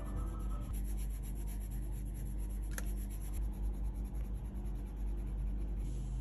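Coloured pencil shading on journal paper: rapid back-and-forth scratchy strokes of the lead, with one sharp tick a little under three seconds in.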